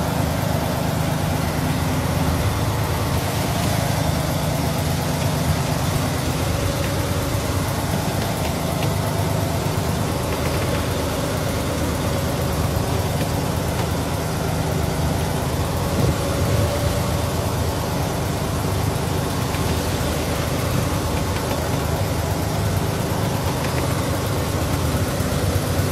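Fishing trawler's engine running steadily, a low even drone with no change in speed.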